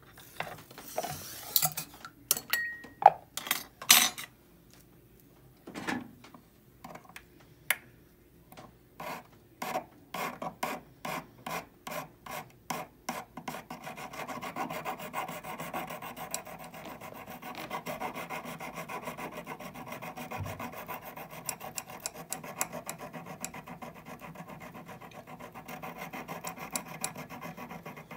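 Flat hand file rasping across a hollow 14kt gold bangle braced on a wooden bench pin. There are a few sharp clicks near the start, then separate strokes about two a second, turning into fast, steady filing from about halfway.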